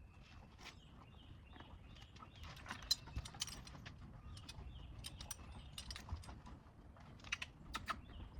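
Horse tack hardware clicking and clinking as a horse is girthed up and bridled: scattered small metallic clicks and jingles. Faint short high chirps repeat about every half second.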